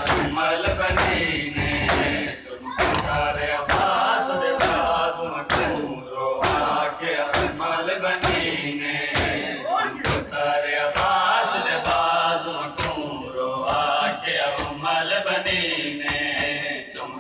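Group of men chanting a mourning lament together while beating their chests in unison during Shia matam, the hand-on-chest slaps landing in a steady rhythm about every 0.7 s under the chanting.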